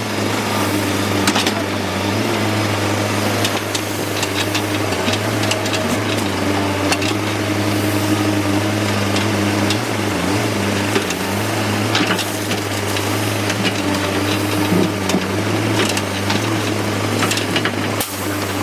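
Excavator's diesel engine running steadily under load, a constant low hum, with scattered clanks and knocks throughout.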